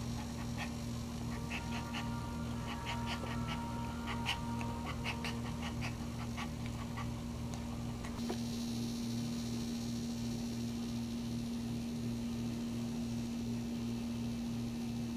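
Maltese dog in labour whimpering and whining in short squeaks, which stop about eight seconds in. A steady low hum runs underneath throughout.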